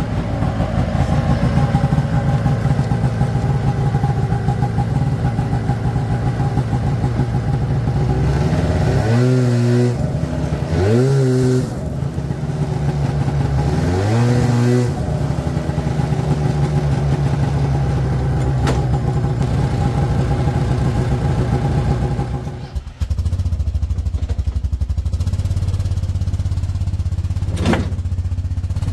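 Rebuilt Rotax 617cc two-stroke engine of a 1992 Ski-Doo Formula Mach 1 snowmobile running, blipped up and back down in three short revs around the middle. Just after two-thirds of the way in the sound dips briefly, then the engine runs on steadily.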